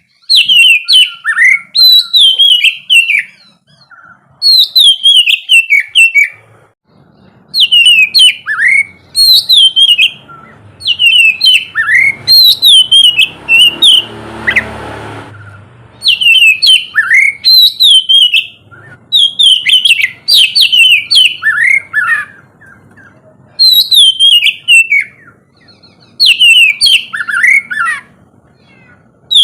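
Oriental magpie-robin (kacer) singing: loud phrases of quick, falling whistled notes, repeated every couple of seconds with short pauses between. A brief rushing noise rises under the song about halfway through.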